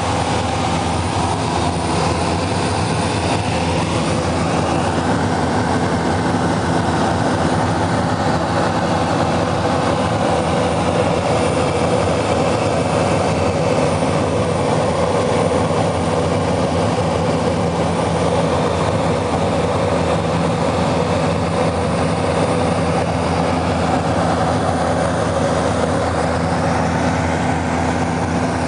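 Cabin noise of a propeller aircraft in cruise flight: the steady drone of the engine and propeller with rushing airflow, a low even hum under a broad hiss.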